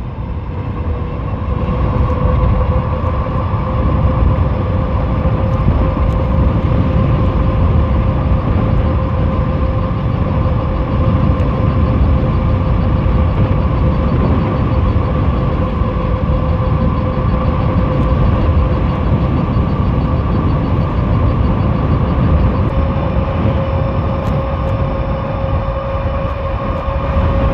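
Dual 1,000-watt electric motors of an all-wheel-drive fat-tire e-bike whining at a steady pitch under power, over a loud low rush of wind on the microphone.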